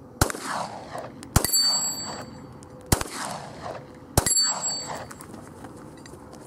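Four 9mm pistol shots from a Glock 19, spaced a little over a second apart, each trailing a long echo. The second and fourth are followed by the high metallic ring of a steel target being hit.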